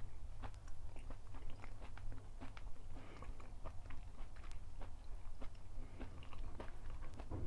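A person chewing and biting food close to the microphone: a steady, irregular run of small wet clicks, smacks and crunches.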